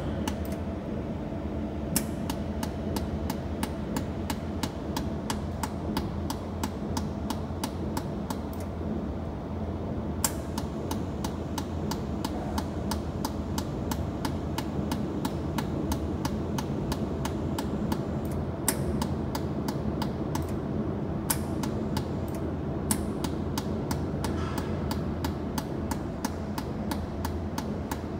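Jewelry laser welder pulsing on stainless steel: a regular series of sharp clicks, a few a second, a handful louder than the rest, over the machine's steady hum.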